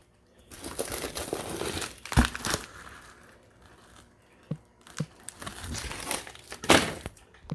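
Packaging crinkling and rustling in several bursts while a box of salmon is unpacked, with two short sharp knocks a little past the middle.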